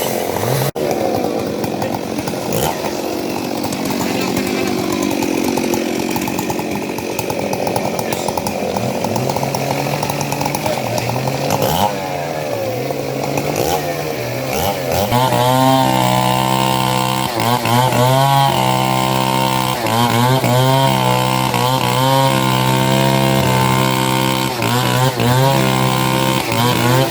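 Chainsaw cutting up fallen kapok tree trunks. The engine is revved up and down again and again, most plainly from about halfway through.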